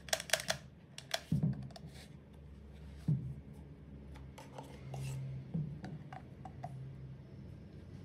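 Hard plastic and metal parts of a Makita DHR243 rotary hammer's gear housing being handled and set down on a metal workbench: a quick run of sharp clicks at the start, then a few separate knocks and lighter ticks.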